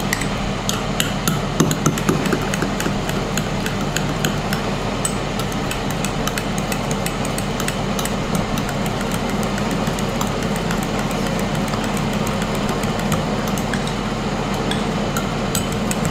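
A spoon clicks and scrapes against a bowl in quick, irregular strokes while mayonnaise and cream cheese are stirred into a creamy sauce. A steady hum runs underneath, from the Ninja Foodi Max air-crisping at 210 °C.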